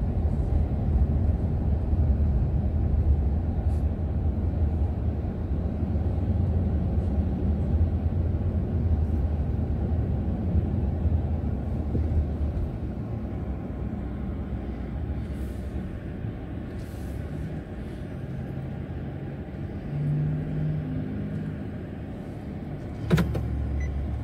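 Steady low road and engine rumble of a car heard from inside the cabin while driving slowly. The rumble eases off after about halfway. A single sharp knock comes near the end.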